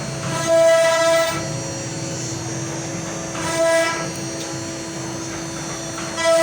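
CNC router spindle running with a steady whine. Three times a louder, richer whine swells up for about a second, the last near the end, as the cutter works the wood.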